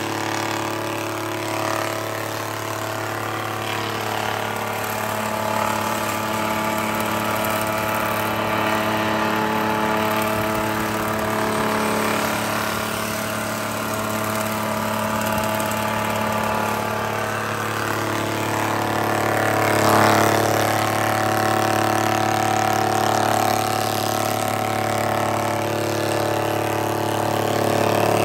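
Old spindle moulder (wood shaper) running steadily, its electric motor humming and the cutter head spinning, with a brief surge about two-thirds of the way through.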